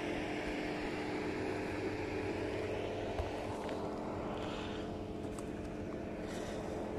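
A steady mechanical drone, an engine-like hum with several held low tones, unchanging throughout.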